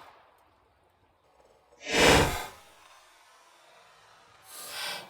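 A person exhaling hard close to the microphone, a loud sigh-like breath about two seconds in and a softer one near the end.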